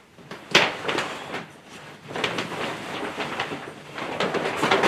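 Mylar-lined grow tent fabric rustling and scraping as it is forced over the tent's steel tube frame in a tight fit, with a sharp knock about half a second in.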